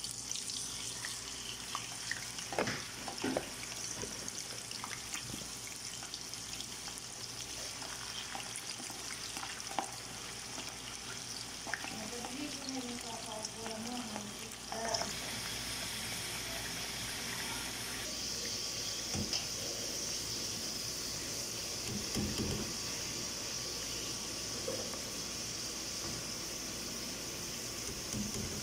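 Potato slices deep-frying in oil in a pan, a steady sizzling hiss that gets stronger about halfway through, with a few clicks and knocks of a metal slotted spoon against the pan.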